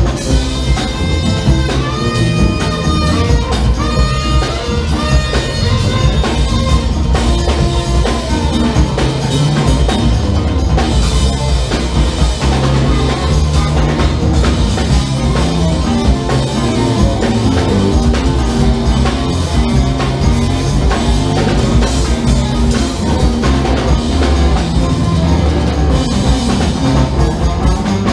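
Live funk band playing an instrumental passage: drum kit and bass drive a steady groove under electric guitar and hand percussion, with a lead line bending in pitch in the first few seconds.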